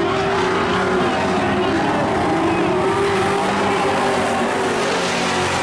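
A pack of dirt-track race trucks racing, several engines running hard at once, their pitch rising and falling as they pass.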